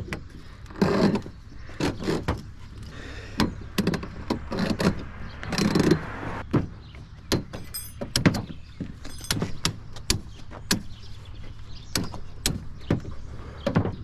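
Steel winding cone being forced and twisted into the cut end of a garage door torsion spring with a winding bar: a run of irregular metal clicks, knocks and scrapes.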